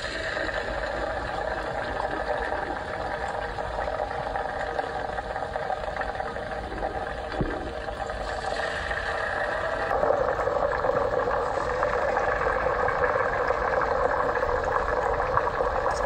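Marinated pieces deep-frying in a pan of hot oil: a steady sizzle that grows louder about ten seconds in.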